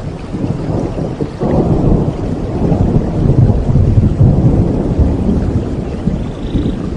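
Thunderstorm: rolling thunder over steady rain, a deep rumble that swells about a second and a half in, peaks in the middle and slowly eases off.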